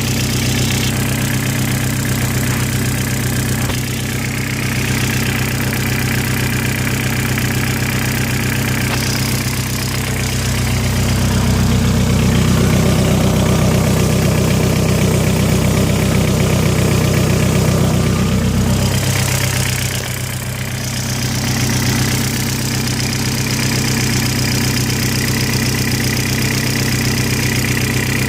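Rebuilt 1.8T turbocharged four-cylinder engine idling with a knock whose cause is unknown to the owner. It runs louder for several seconds in the middle, then settles back.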